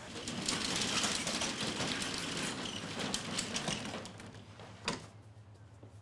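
Mechanical rattling with many rapid clicks for about four seconds, ending in a single sharp clank.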